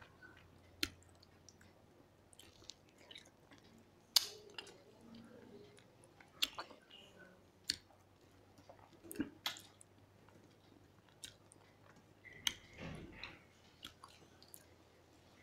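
Two people eating rice and fish curry by hand: chewing and wet mouth noises, with scattered sharp clicks at irregular moments, the loudest about four seconds in.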